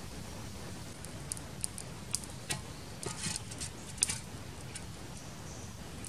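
Glowing charcoal in a clay stove crackling, giving a scattered run of sharp, high ticks and pops over a low steady background.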